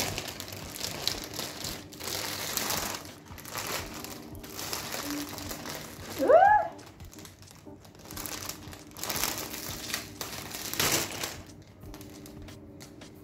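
Clear plastic flower sleeve crinkling and rustling in bursts as a bouquet is handled and its stems are pulled out. About six seconds in there is one short pitched squeak that rises and falls, the loudest sound.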